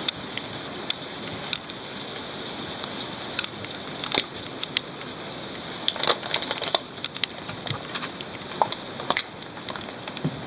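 Heavy rain falling steadily, a constant hiss, with scattered sharp taps and clicks that come thickest around six to seven seconds in.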